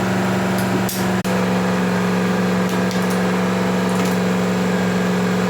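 A steady machine hum, one low droning tone with a fainter higher one, broken off briefly about a second in.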